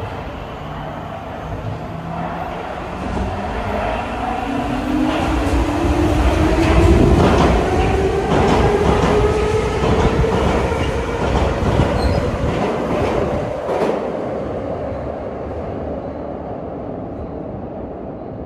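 Soviet-built 81-71 metro train accelerating past. Its motor whine rises steadily in pitch while the wheels clack over the rail joints. The sound is loudest as the cars go by, then fades as the train pulls away.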